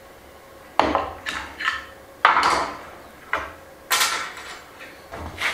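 Knocks and clatter of wood and metal: about seven sharp hits at uneven intervals, some with a short ring, as a heavy reclaimed timber beam and its metal fittings are handled on a workbench.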